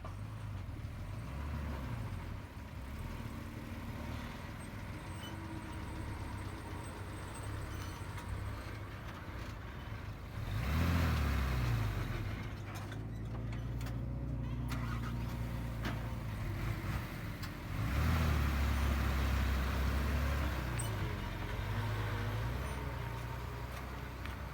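Heavy diesel earthmoving engine running, revving up hard about ten seconds in and again about eighteen seconds in, then easing back between.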